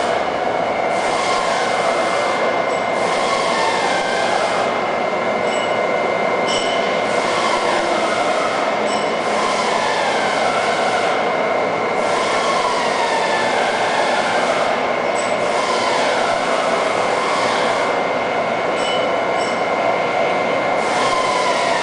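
Cincinnati Gilbert Model J CNC horizontal boring mill running under power: a steady mechanical noise with a constant high whine, and tones that glide up and down every few seconds.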